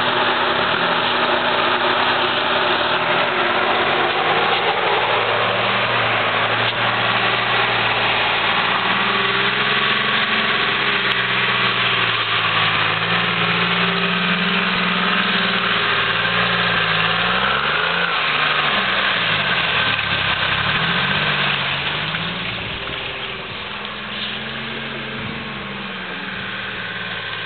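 M561 Gama Goat's Detroit Diesel 3-53 two-stroke diesel engine driving offroad, its pitch rising and falling repeatedly as the throttle changes. It grows quieter after about 22 seconds as the vehicle moves away.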